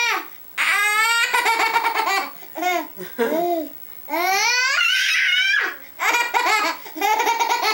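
Baby laughing in bouts of quick, pulsing belly laughs with short pauses between, and a long high-pitched squeal about four seconds in.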